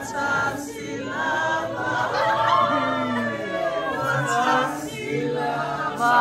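A group of voices singing together without instruments, several pitches sounding at once and held.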